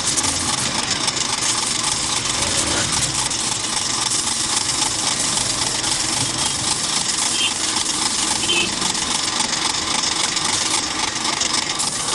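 A Yamaha 100cc motorcycle fuel tank being scrubbed by hand with an abrasive sanding block to take off old paint, a steady rubbing that cuts off abruptly near the end.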